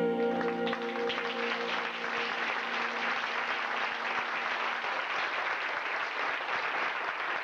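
The final held chord of a song with backing music dies away about half a second in, and audience applause takes over, with one low note of the accompaniment lingering under it for a few seconds.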